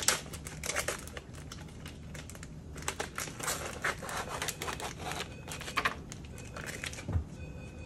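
Plastic and paper sterile supply packaging crinkling and rustling in irregular bursts of crackles as a pouch is handled and an item is pulled out of it.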